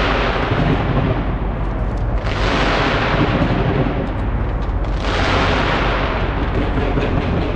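Large fireworks display going off nonstop: a steady deep rumble of bursts, with a rush of hiss and crackle swelling about every two and a half seconds.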